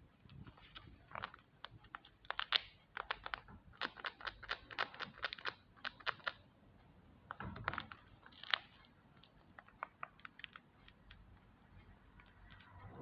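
A handmade paper squishy book being handled: irregular quick crinkles and taps of paper and tape, busiest in the first half and sparser toward the end.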